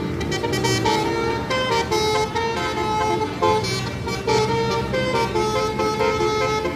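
Basuri telolet bus horn, a multi-trumpet air horn, playing a tune of short, changing notes, with a falling glide about a second in.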